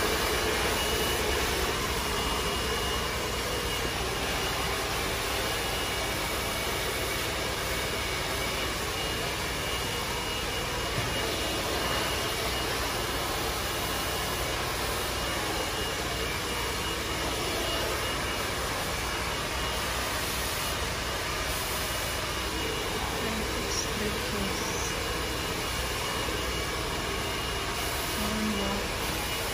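Handheld hair dryer blowing steadily on high as hair is dried over a round brush, with a faint high whine above the rush of air.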